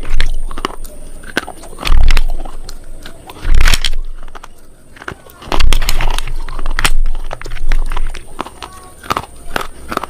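Irregular crunching and crackling clicks, with a few loud low thumps about two seconds apart.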